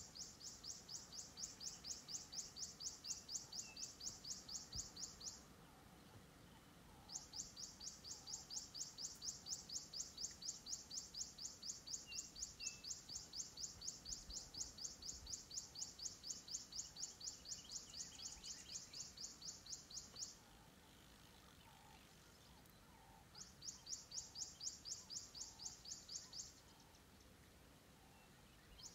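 High-pitched rhythmic chirping from a wild animal, about six or seven chirps a second, in long runs that stop and start again, with fainter lower calls beneath.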